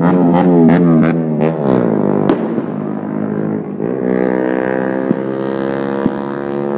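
An engine revving up and down, then running at a steady pitch from about four seconds in. Several sharp pops or bangs come in the first two and a half seconds.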